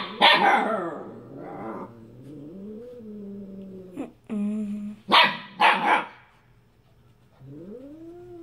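Siberian husky puppy barking at a cat in short sharp yaps, a few at the start and two more about five to six seconds in, with a drawn-out wavering whine between them. Near the end a low, wavering drawn-out moan begins.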